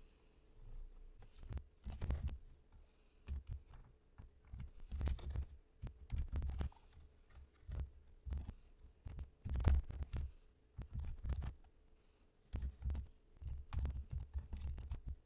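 Typing on a computer keyboard in irregular bursts with pauses between them, the keystrokes heard as light clicks over dull thumps.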